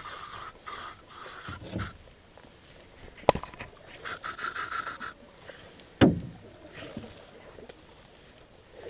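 Aerosol bug spray hissing from the can in a few short bursts, then a longer spray of about a second, about four seconds in. A sharp knock comes about three seconds in, and a louder thump at about six seconds.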